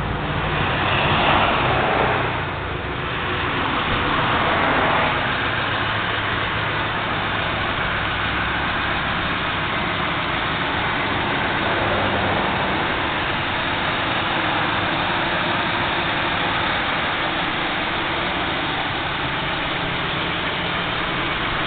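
A vehicle engine idling steadily under a steady hiss, with a louder rush of noise in the first few seconds.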